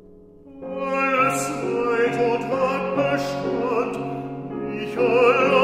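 Bass-baritone singing a German art song with piano accompaniment. The voice enters with vibrato about half a second in, over fading piano chords.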